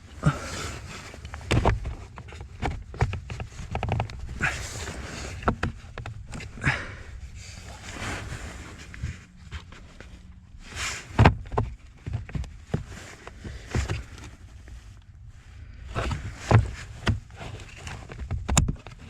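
Irregular plastic knocks, clicks and scraping as the blower fan motor is worked and twisted into its mount under the dashboard.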